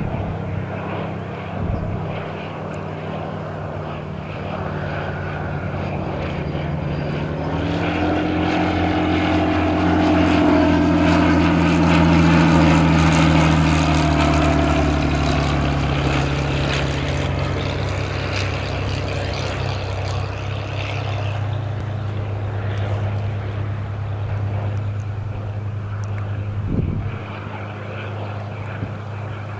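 Piston-engined WWII fighter's Rolls-Royce Merlin V12 engine running as the aircraft comes in to land. The drone grows louder to a peak about a third of the way in, drops in pitch as it passes, then settles to a steadier, lower drone.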